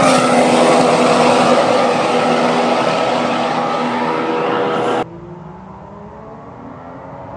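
2014 Mercedes Formula One car's turbocharged V6 engine running at high revs. Its pitch falls at the start and then holds steady, and the sound cuts off abruptly about five seconds in. A quieter engine follows, its pitch slowly rising.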